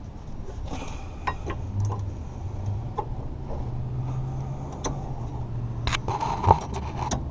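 Light clicks and clinks of brake pads and their small metal hardware being handled, with a louder rattle and clack about six and a half seconds in. A steady low hum runs underneath.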